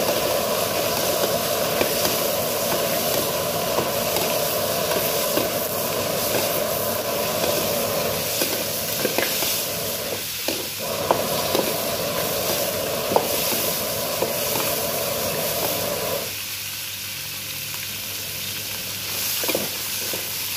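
Pork bones sizzling in hot oil in a steel wok as a metal ladle stirs them, with scattered clicks and scrapes of the ladle against the wok. This is the searing stage, browning the meat until the outside tightens and crisps before water goes in. The sizzle drops a little quieter about three-quarters of the way through.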